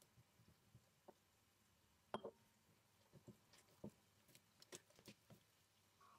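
Faint, soft thuds and taps of dough being kneaded by hand on a countertop, a dozen or so scattered strokes with the loudest about two seconds in.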